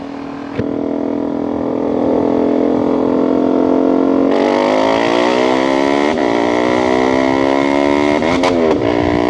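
KTM RC250's single-cylinder engine heard from the saddle. It holds a steady pitch for the first few seconds, then from about four seconds in climbs through the revs under acceleration. There is a gear change about six seconds in, and near the end a couple of quick dips in the revs where the rider fluffs a shift. The bike is very loud ('bacot').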